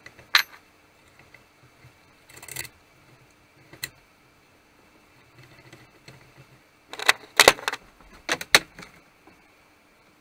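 Sharp metallic clicks and clinks of metal objects being handled: a few scattered ones, then a quick run of louder ones about seven to nine seconds in.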